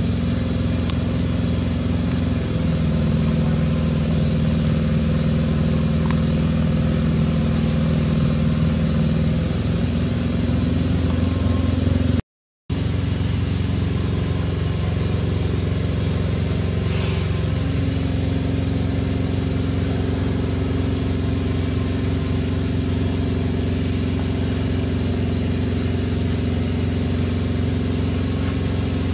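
A steady low engine hum with even, unchanging tones that shift pitch in steps a few times. It drops out for a moment about twelve seconds in.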